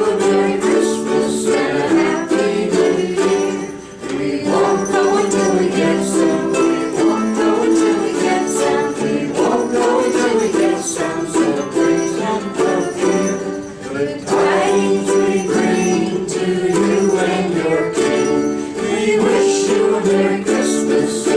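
A group of ukuleles strumming a Christmas tune together, with jingle bells shaking along.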